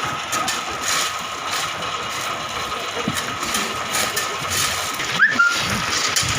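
Steady mechanical noise with a thin, high, constant whine running through it, typical of machinery at a building construction site. About five seconds in the noise dips briefly and a short rising squeak sounds.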